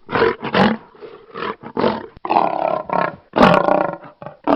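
A lion roaring: a run of short roars one after another, the longest and loudest about three and a half seconds in.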